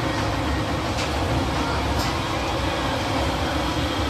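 Steady low rumble of a Ferris wheel turning, heard from inside a moving gondola.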